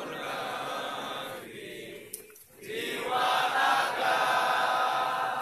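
A group of people voicing words together in unison. They break off for about a second near the middle and resume louder.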